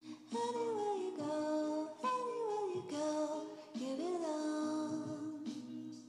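Background music, a song with a gliding sung melody over steady sustained chords, starting abruptly at the outset.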